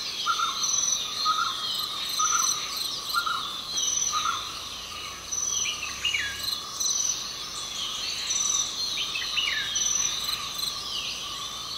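Crickets and birds in an Indian forest at early morning. There is a steady high cricket trill with a chirp about once a second, and birds calling with repeated short notes and some falling whistles.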